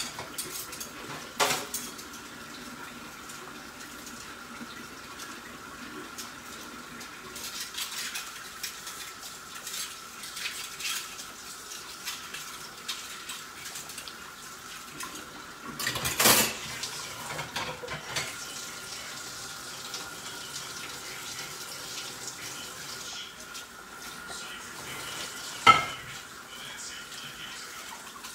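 Kitchen pots, pans and utensils knocking and clinking three times, about a second in, midway and loudest near the end, over a steady faint hum and the low hiss of a pot of water boiling on the hob.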